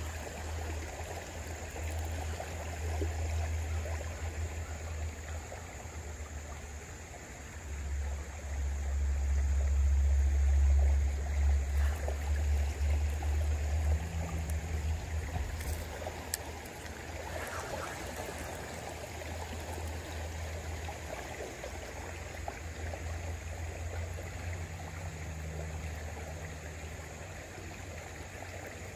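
Shallow stream flowing over a riffle: a steady rush and ripple of running water, with a low rumble that grows louder for a few seconds mid-way.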